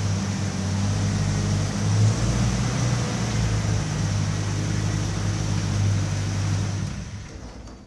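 Car engine running steadily with a low hum, then dying away over about the last second.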